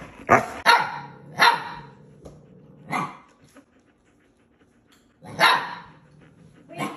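Siberian huskies "talking": the adult husky gives a quick run of short barking vocalisations in the first two seconds and another about three seconds in. After a pause, the 8-week-old husky puppy lets out a single loud yelling bark at about five and a half seconds.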